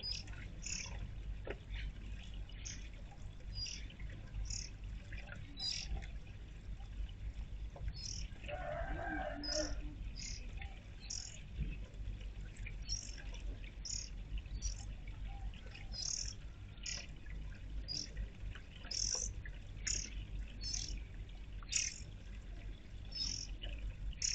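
Backyard songbirds chirping: short, high chirps repeated about once a second, with a lower, longer sound about nine seconds in, over a steady low rumble.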